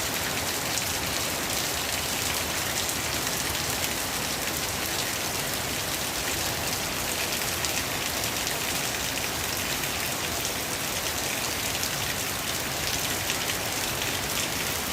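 Steady rain falling, a dense, even patter of drops that keeps up without let-up.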